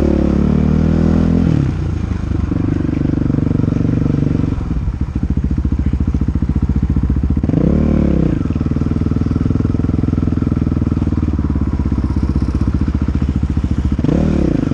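KTM 500 EXC dirt bike's single-cylinder four-stroke engine, revving high at first, then dropping to low, pulsing revs about five seconds in. The throttle is blipped briefly about eight seconds in and again near the end.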